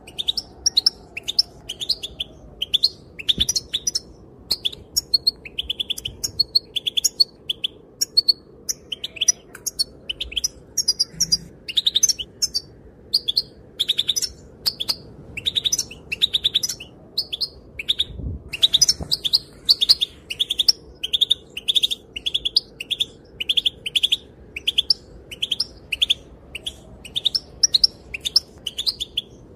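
European goldfinch calling and twittering: a fast, unbroken run of short high chirps, several a second.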